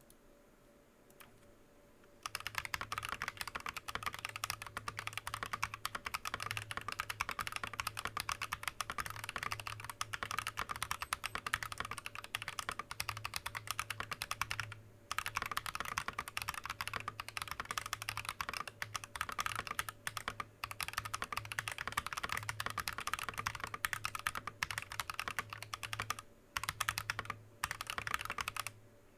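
Fast continuous typing on a TM980 mechanical keyboard with Akko Lavender tactile switches and Drop Keysterine keycaps: a dense clatter of keystrokes. It starts about two seconds in and breaks off briefly a few times, around the middle and near the end.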